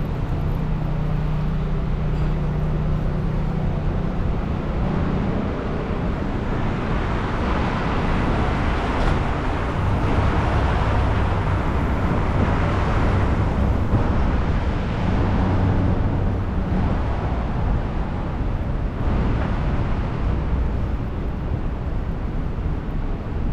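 Street traffic: cars passing and idling, a steady wash of road noise with a low engine hum that swells toward the middle.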